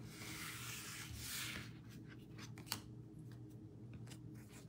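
Faint handling of baseball card packs and cards on a table: a soft rubbing, sliding sound lasting about a second and a half, then a few light taps and clicks, one sharper near the middle.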